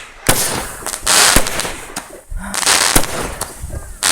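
Handheld consumer fireworks going off: sharp bangs about a second or so apart, four in all, with a rushing, crackling hiss between them.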